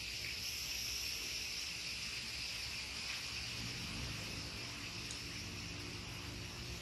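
Steady high-pitched background hiss with a faint low hum beneath it, with no distinct knocks or tool strokes.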